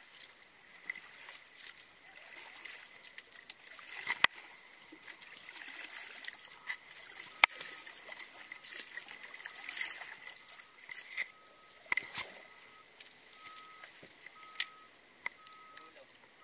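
Wooden paddle working the water beside a small outrigger boat: splashing and dripping strokes with irregular sharp knocks of wood. A faint short beep repeats about twice a second from about six seconds in.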